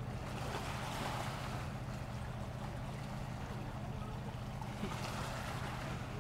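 Small waves from a passing motorboat's wake washing against the shore, swelling about a second in and again near five seconds. Underneath, the distant motorboat's engine gives a steady low hum.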